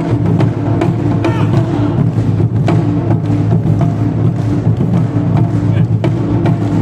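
Japanese taiko drums played in ensemble, a dense run of fast strikes with a deep, heavy low end over a held pitched tone.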